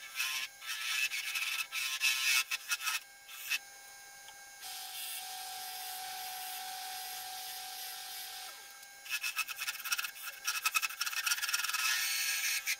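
A turning tool cutting wood on a spinning wood lathe, in short uneven scraping strokes. The cutting stops for a few seconds in the middle, leaving a steady hiss and whine from the running lathe, then starts again.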